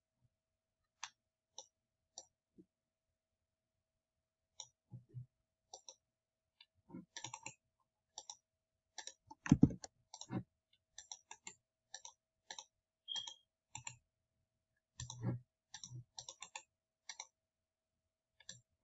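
Computer mouse clicking at irregular intervals, sparse at first, then coming in quicker runs, with one louder knock about nine and a half seconds in.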